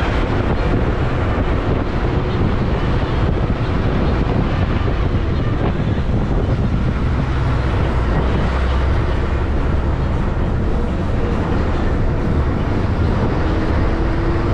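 A moving local bus heard from inside its cabin: a steady engine drone with road noise and wind.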